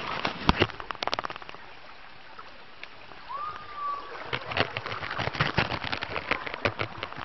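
Legs wading through knee-deep floodwater, splashing and sloshing in irregular strokes, with a quieter lull about two seconds in. A short high-pitched call sounds around the middle.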